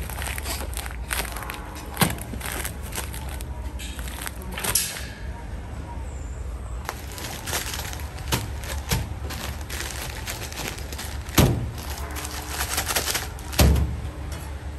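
Plastic bags of sea salt being handled and set down on a stainless-steel counter: the plastic crinkles and rustles, with a few dull thumps as bags land, the loudest near the end. A steady low hum runs underneath.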